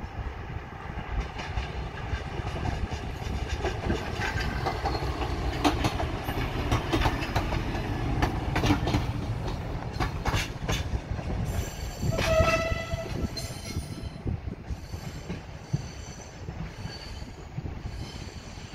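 A train rumbling past with its wheels clicking sharply over the track, and a short horn blast about twelve seconds in.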